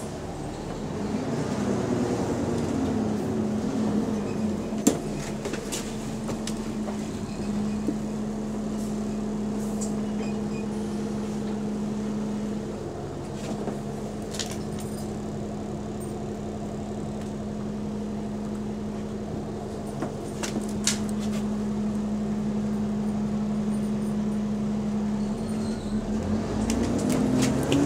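Bus engine and radiator cooling fan heard from inside the saloon. A steady hum holds through the middle, the pitch rises and falls near the start and again near the end as the engine revs, and a few sharp clicks sound.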